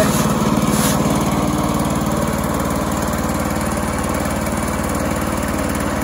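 Small gasoline engine of a Woodland Mills HM122 portable bandsaw mill running steadily, a smooth even putter.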